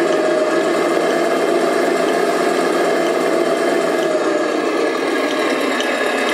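Electric motor and gearing of a 1/14 scale RC IVECO 4x4 dump truck running with a steady whine. The pitch sags a little past the middle and picks up again near the end.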